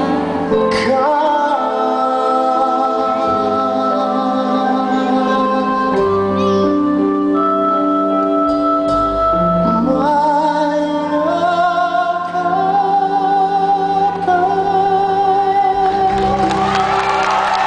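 A male vocalist sings live with an amplified band of guitars and drums. He holds long notes with vibrato and climbs to a long, high sustained note near the end.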